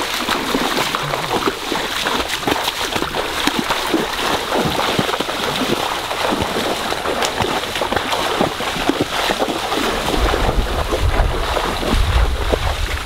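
Splashing and sloshing of people wading and working in a shallow, flowing stream, over the steady run of the water. It grows heavier and deeper near the end.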